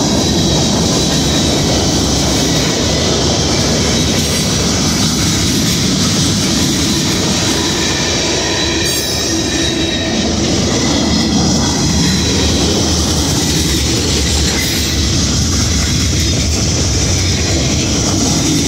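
CSX freight train rolling past, a steady loud noise of steel wheels running on the rails.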